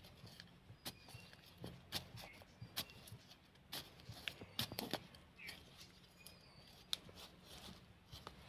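A small metal hand trowel scraping and digging into dry, stony soil in short, irregular strokes, each a sharp scrape or click.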